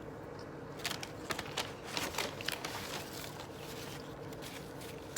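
Eating and food-handling noises: a cluster of small clicks and crackles in the first few seconds, then a steady low background hum.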